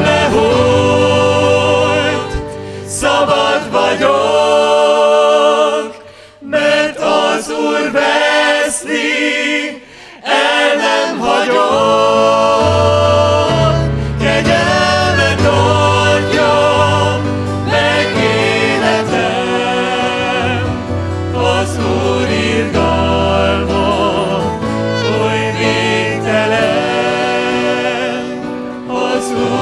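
A worship band playing a song, with several voices singing together over guitar, bass and drums. The bass drops out about six seconds in and comes back at around twelve seconds.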